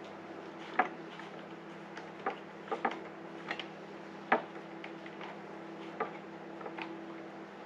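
Irregular sharp clicks and taps of a small screwdriver working on a Stanley chainsaw's plastic housing, about ten of them a fraction of a second to a second and a half apart, the loudest about a second in and again just past the middle.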